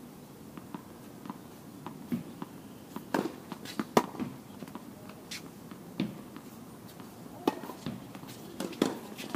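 Tennis ball struck by rackets and bouncing on the court: sharp, irregular knocks a second or two apart, faint at first and louder from about three seconds in.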